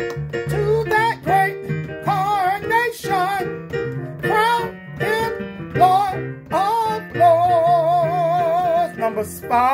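Gospel music with guitar accompaniment and singing. About seven seconds in, a voice holds one long note with vibrato.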